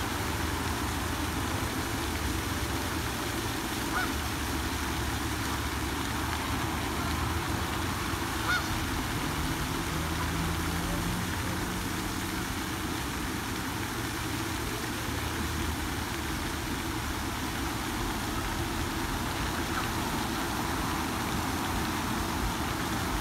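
Steady rushing splash of a pond's spray fountain, with two brief honks from waterfowl about four and eight and a half seconds in.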